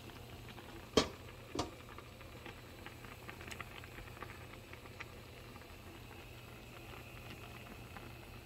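Soup at a rolling boil in a stainless steel pan: steady bubbling with many small pops and crackles over a low hum. Two sharper clicks stand out about a second in.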